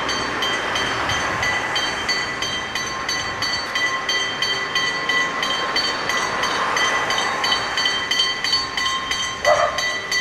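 Narrow-gauge steam locomotive working hard as it approaches, with rapid, even exhaust beats about four to five a second and steady high-pitched tones over them. A short, louder sound comes near the end.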